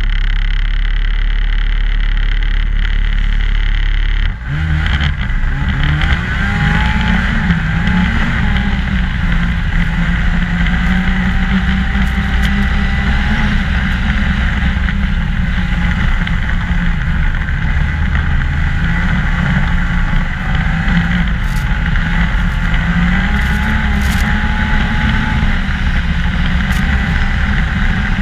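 A 2014 Ski-Doo MXZ 600 snowmobile running along a trail, its engine pitch rising and falling with the throttle. About four seconds in the sound changes abruptly from a steadier, duller drone to the varying engine note.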